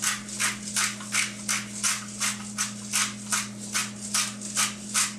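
Large heavy-duty pepper mill grinding black peppercorns coarsely. It makes a steady rhythm of short, gritty crunches, about three a second, one with each twist of the mill.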